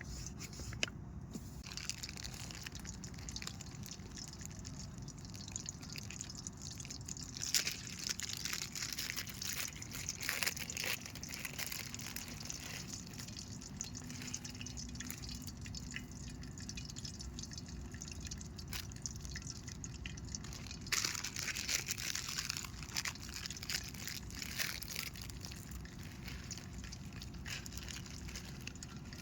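Cooking oil heating in a pan over a camp fire or stove, with liquid sounds and two stretches of thick crackling, about a third of the way in and again near two-thirds, over a steady low rumble.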